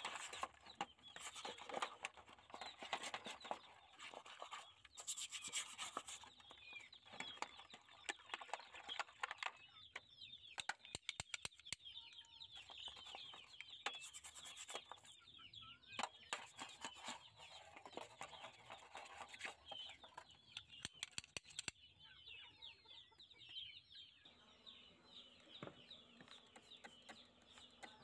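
Rusty steel parts being scrubbed by hand in a basin of soapy water: splashing, rubbing and small clicks of metal. Chickens cluck in the background, with many short high calls, most in the second half.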